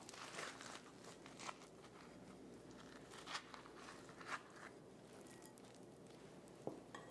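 Faint scraping and crunching of a metal spoon scooping stringy cooked spaghetti squash flesh from its skin, a few soft scrapes scattered through over quiet room tone.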